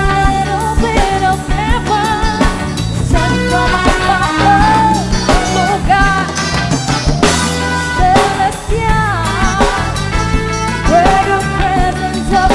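A band playing a worship song, with drum kit, steady bass and a melodic lead line that bends and wavers in pitch.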